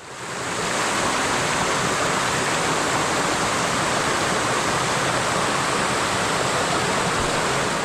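Steady rushing noise of flowing water, like a stream or small waterfall, fading in over the first second and then holding even.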